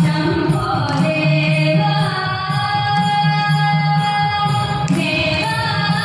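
Thiruvathira dance song: sung melody with musical accompaniment, long held notes that step to a new pitch a few times.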